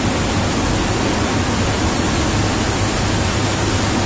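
Loud, steady rush of wind and turboprop engine noise inside the cargo hold of a C-130J Super Hercules flying with its paratroop door open, with a steady low drone underneath.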